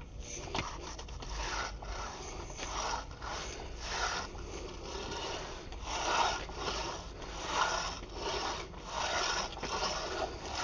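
Hand concrete finishing tool scraping across wet concrete in repeated strokes, about one a second, cutting in a control joint.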